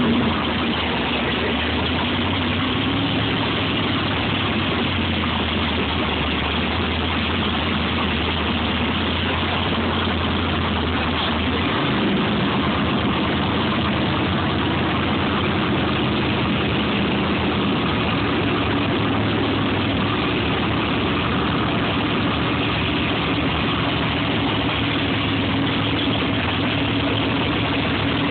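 An engine or motor running steadily with a low hum, its pitch shifting slightly about twelve seconds in.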